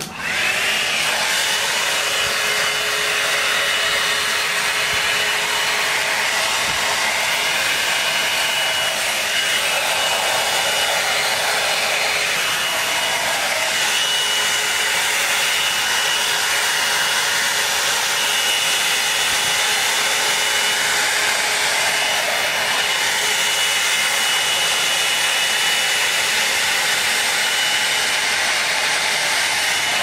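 Drybar Double Shot oval blow-dryer brush running steadily: a hot-air styling brush blowing a constant rush of air with a thin high whine over it.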